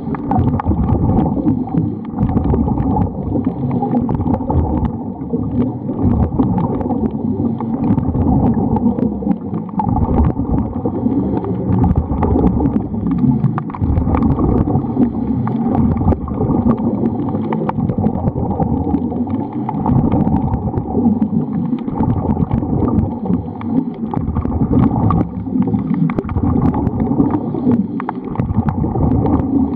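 Steady, muffled underwater noise: a continuous rumbling wash of water with a gurgling edge, heard through an underwater camera.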